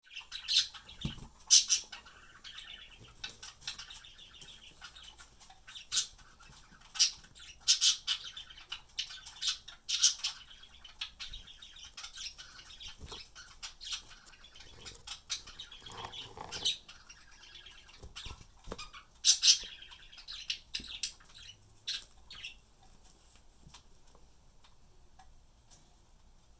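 Pet budgerigars chattering and chirping, with sharp loud squawks every few seconds; the chatter dies away near the end.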